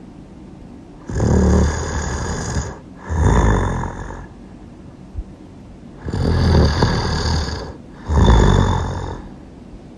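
Loud snoring in a repeating rhythm: a long snore followed at once by a shorter one, twice, with quiet gaps between the pairs.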